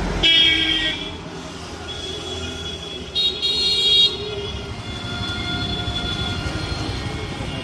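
A vehicle horn honks twice, about three seconds apart: a short toot near the start and a second, slightly longer one about three seconds in. Steady road traffic noise runs underneath.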